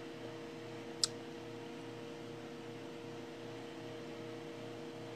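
Steady electrical hum with faint hiss, and one sharp click about a second in.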